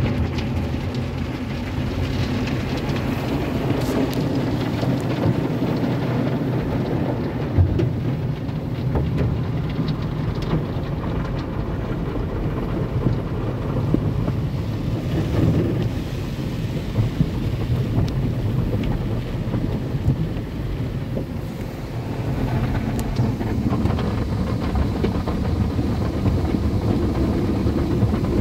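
Autec AES-425 car wash dryer blowers switching on abruptly and then running steadily: a loud rush of air with a low hum.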